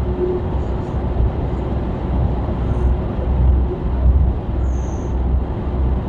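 Steady in-cab drone of a Mercedes-Benz truck's diesel engine and tyre and road noise at highway speed, with a brief high chirp about five seconds in.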